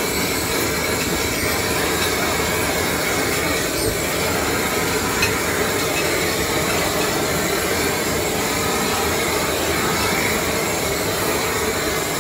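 Handheld gas blowtorch running with a steady hiss, its flame searing tuna cheeks in a pan.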